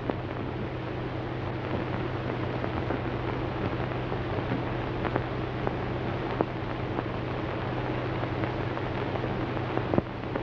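Steady hiss and a low hum from an old film soundtrack, with a few scattered clicks and pops.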